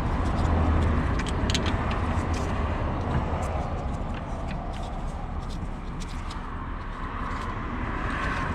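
A steady low rumble of a vehicle engine or road traffic, with a few scattered light metallic clicks from the caliper bolt and tools being handled.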